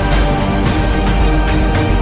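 Background music track with a heavy bass, sustained tones and regular percussion hits.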